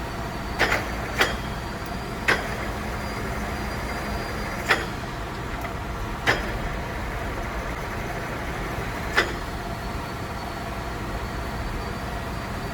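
A Kingston HR 2000 heavy-duty engine lathe running with a steady mechanical hum and a faint high whine. Six sharp clicks or knocks come at irregular moments.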